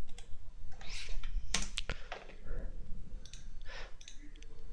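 A handful of sharp computer mouse and keyboard clicks at irregular intervals.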